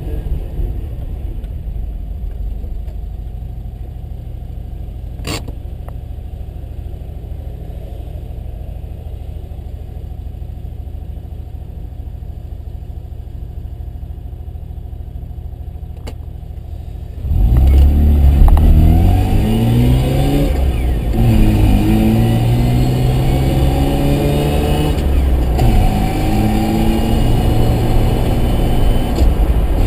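Mazda RX-7's rotary engine running steadily at low revs, with two sharp clicks. About two-thirds of the way in it gets much louder as the car accelerates hard, the engine note climbing and dropping back several times.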